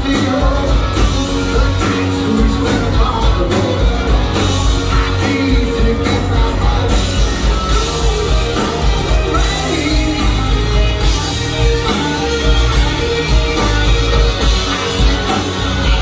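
Live rock band playing, with a singer's voice over drums, bass and electric guitar.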